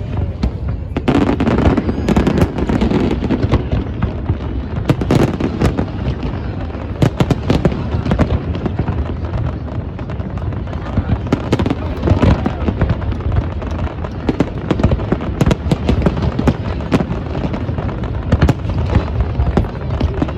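Fireworks display: a continuous, rapid run of bangs and crackling pops, with a steady low rumble underneath.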